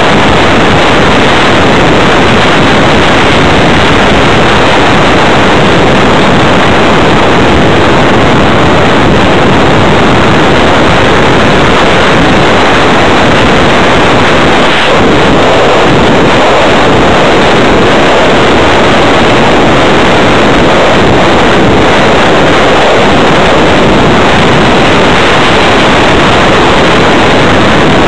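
Steady, very loud rushing of air over the onboard camera's microphone as an electric RC hotliner flies, filling the sound and pushing the microphone close to overload.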